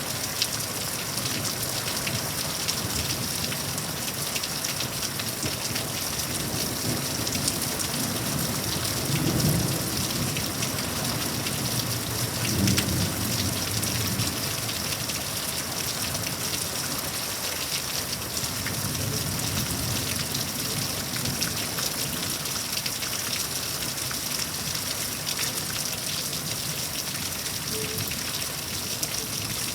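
Heavy thunderstorm rain falling steadily, with low rumbles of thunder about nine and thirteen seconds in.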